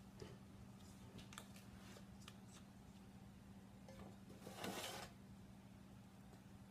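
Faint scraping of a silicone spatula against a stainless steel mixing bowl as thick banana bread batter is scraped out into a loaf pan: a few light clicks, then a longer scrape about four and a half seconds in. A faint steady hum lies underneath.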